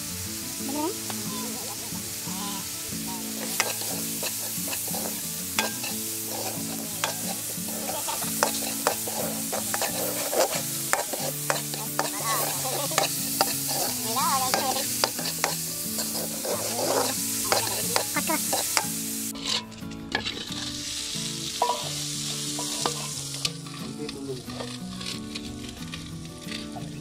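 Shrimp sizzling as they fry in a large metal wok over a wood fire, with a spatula stirring them and clicking and scraping against the pan many times. The sizzle thins out about twenty seconds in.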